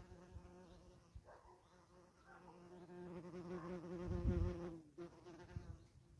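A flying insect buzzing close to the microphone, its hum wavering in pitch and growing louder before cutting off suddenly near the end. A few low bumps come about two thirds of the way in.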